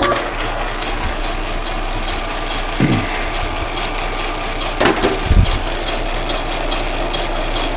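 Metal lathe switched on and running steadily, the chuck spinning a half-inch aluminium rod as a knurling tool is worked against it. There is a short knock with a low thump about five seconds in.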